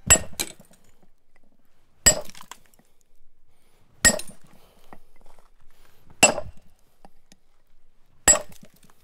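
Hammer blows on a hand-forged steel pitching tool set against the edge of a stone block: five ringing metal strikes about two seconds apart, each breaking stone off the edge to leave a rough, broken face.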